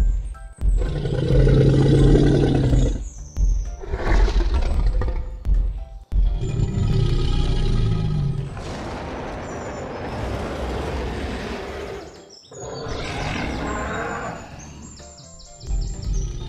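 Cartoon T-Rex roar sound effects: a series of long, rough roars one after another, each a few seconds long, over background music.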